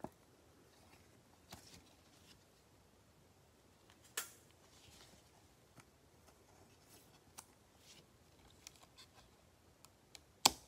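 Faint handling of Panini Prizm basketball cards: cards sliding over one another in gloved hands, with scattered sharp clicks and ticks, a strong one about four seconds in and the loudest near the end.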